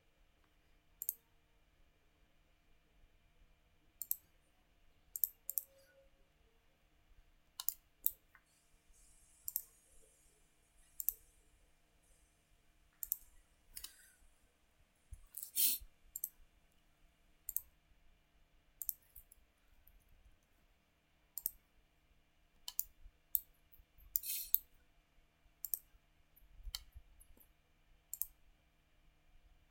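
Computer mouse clicking: single sharp clicks every second or two at an uneven pace, with the loudest click about halfway through and a quick cluster of clicks later on.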